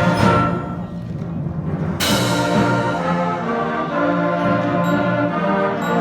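A school concert band plays a Christmas arrangement with brass and percussion. A held chord dies away, then about two seconds in the full band comes back in on a sharp, loud accent, and sustained brass chords follow.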